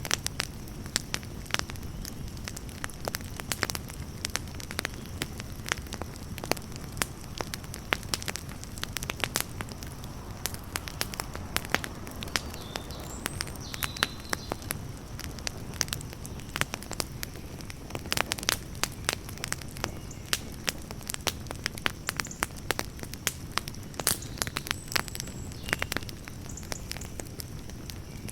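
Wood campfire burning with a steady low rush and frequent irregular sharp crackles and pops.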